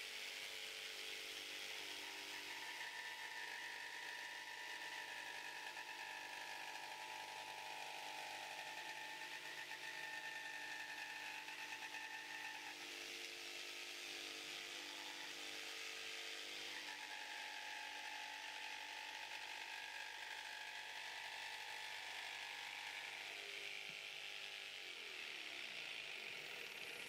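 Mafell P1CC jigsaw running steadily as it cuts a circle through an MDF board on its circle guide. Its motor note shifts a little a couple of times along the way, and it starts to wind down at the very end.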